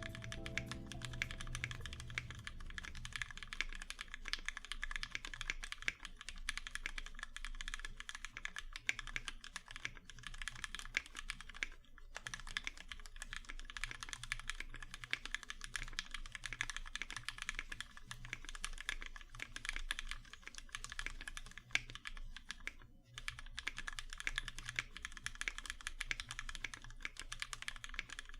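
Continuous fast typing on a custom 60% mechanical keyboard with lubed Cherry MX Black linear switches, GMK keycaps and an aluminium plate: a dense stream of keystroke clacks with two brief pauses, about twelve and twenty-three seconds in. Background music fades out in the first few seconds.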